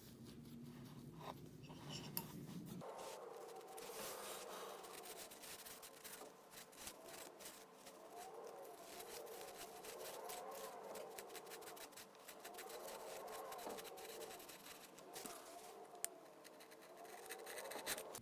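Hand tool scraping and cutting away swollen, water-damaged wood from a door casing: a quiet run of dry scratching with many small ticks, starting in earnest about three seconds in.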